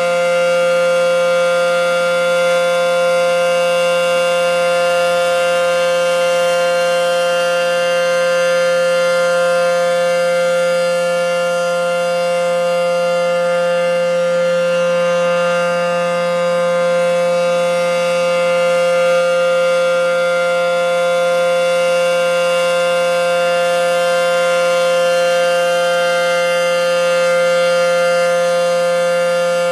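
ACA P-10 outdoor warning siren sounding a steady alert tone for a full system test, heard from directly beneath it. It holds one unchanging pitch, with only slight swells in loudness.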